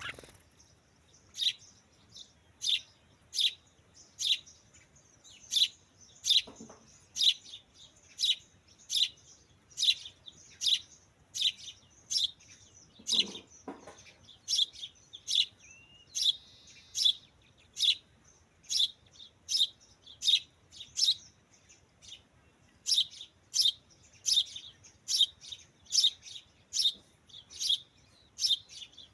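A bird chirping over and over, sharp high chirps about one and a half a second, with a short break partway through.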